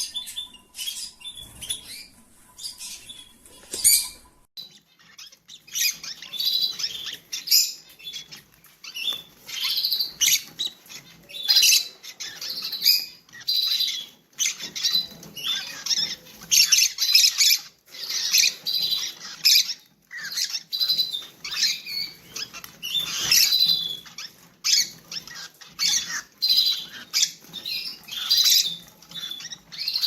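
Rosy-faced lovebirds calling: many short, high chirps and squeaks in quick succession, broken by brief pauses.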